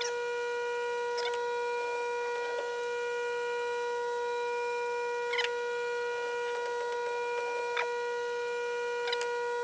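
A steady high-pitched hum, one unchanging tone with overtones, with a few faint metallic clicks and taps from hand work at the lathe.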